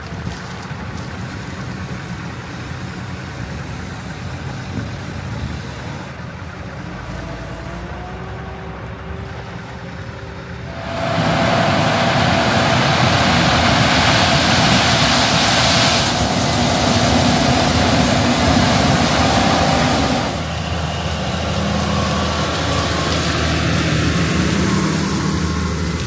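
Harvest machinery running. First a diesel engine runs steadily with a low hum; then, about eleven seconds in, a much louder rushing machine noise takes over, fitting a Case IH combine harvesting corn. It eases off somewhat a few seconds before the end, leaving a steady engine hum.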